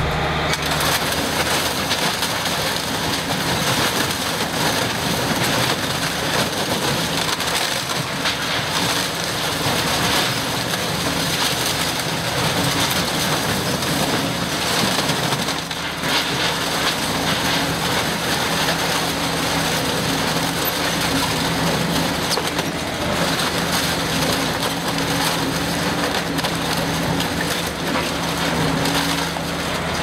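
SSI PRI-MAX PR4400 twin-shaft industrial shredder tearing apart dishwashers: a continuous loud crunching and cracking of sheet metal and plastic being ripped between the cutter shafts, over a steady drive hum.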